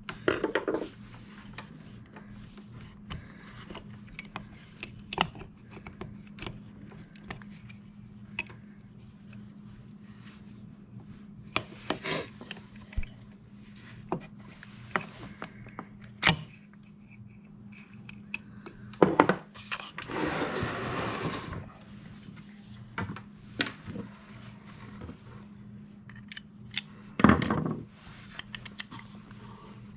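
Hand tools and small metal and plastic parts clicking and knocking while a winch's controller connector is worked apart. There is a scraping rub lasting about a second and a half around twenty seconds in, and sharp knocks just before it and near the end, over a steady low hum.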